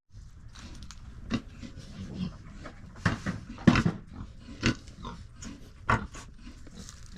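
Farm livestock calling: a run of short, sudden calls, loudest about three to four seconds in.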